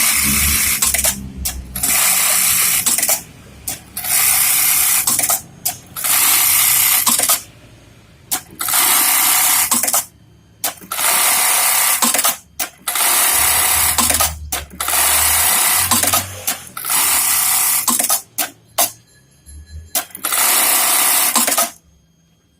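Brother KE-430D industrial bartacking sewing machine sewing bartacks: repeated short bursts of fast, buzzing stitching, each about a second long with brief pauses between, the rhythm of one tack cycle after another.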